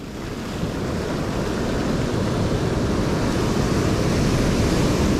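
Ocean surf washing up over the sand at the water's edge: a steady rushing wash that builds gradually louder.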